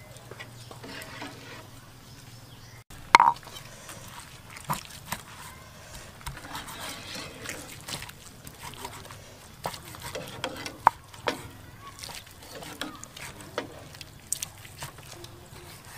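Kitchen knife slicing cooked beef on a wooden chopping board: scattered taps and knocks of the blade against the board, the loudest a sharp knock with a short ring about three seconds in.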